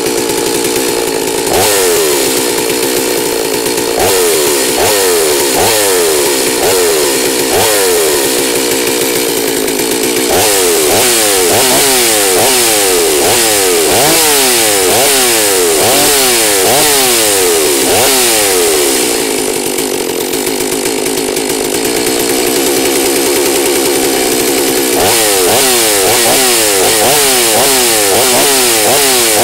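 Holzfforma G388 two-stroke chainsaw running unloaded while being warmed up, its engine revved up and down over and over in quick throttle blips, with a steadier, slightly quieter stretch about two-thirds of the way through before the revving resumes.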